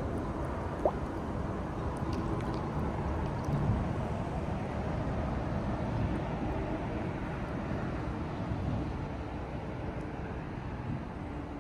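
Water splashing and gurgling as a crowd of koi churn and break the surface, with a steady low rumble underneath.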